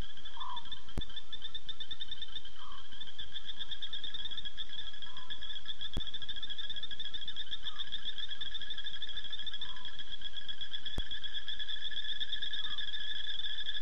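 Night chorus of insects and frogs: a steady, high, pulsing trill with a second, lower trill beneath it, and short lower calls about every two and a half seconds. A sharp tick comes every five seconds.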